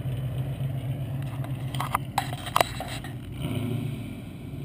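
Low, steady engine rumble of an idling car, with a few short clicks about two seconds in.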